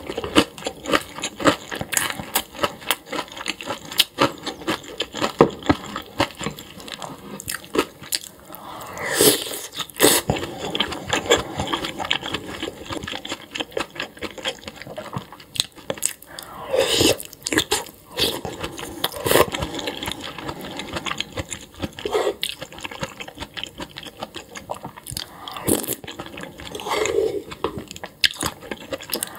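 Close-miked eating: a person biting, crunching and chewing food, with many short, crisp bite and chew sounds following one after another.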